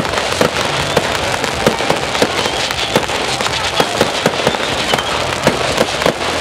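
Fireworks going off: a rapid, uneven run of sharp bangs, a few a second, over a continuous crackle from the burning effects.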